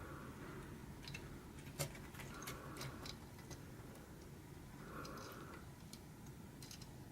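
Scattered light clicks and ticks at low level, with a faint tone that comes back about every two and a half seconds.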